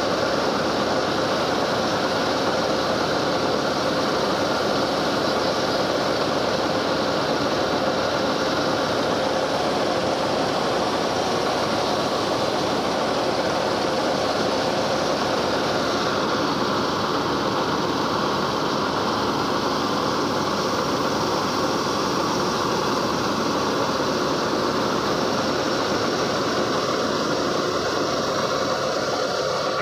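Combine harvester running at a steady speed while its unloading auger pours threshed rice grain onto a tarp: a dense, even mechanical drone with a steady hum in it.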